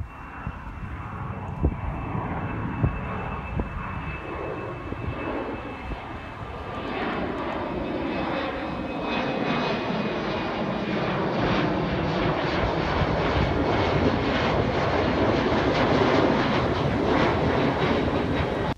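Twin-engine jet airliner climbing out after takeoff, its engines growing steadily louder as it passes almost overhead. A thin high whine sounds over the first several seconds, and the pitch of the engine noise slides downward as the aircraft goes over.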